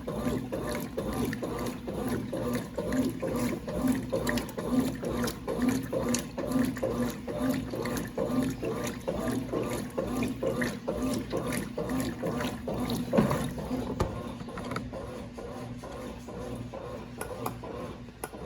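1996 Brastemp Clean 5 kg top-loading washing machine running a wash cycle: a steady motor hum under regular rhythmic strokes of the agitator, with water sloshing. It grows somewhat softer in the last few seconds.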